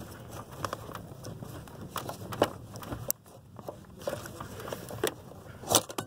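Scattered clicks and rustles of a gloved hand working a brake light switch and its wiring loose under a car's dashboard, with a sharper click near the end.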